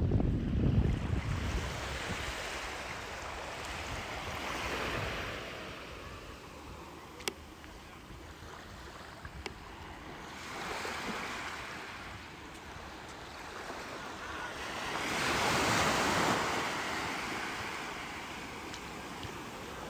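Ocean surf washing onto the beach, swelling and fading three times, the loudest surge near the end. Wind buffets the microphone at the start.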